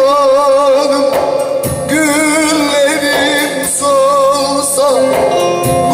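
Turkish folk song (Teke-region türkü) performed with singing and instrumental accompaniment: long held, ornamented melodic notes with a wavering pitch, broken by short pauses.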